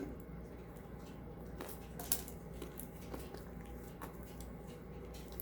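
Scattered light clicks and taps of a utensil against a plastic container while slime ingredients are mixed, with one sharper knock about two seconds in.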